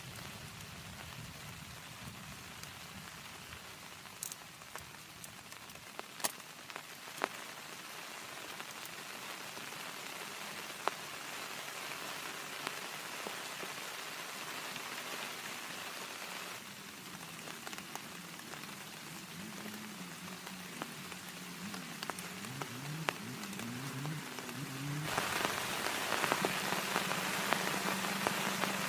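Steady rain falling, with scattered sharp drop hits. It gets heavier and louder about three-quarters of the way through.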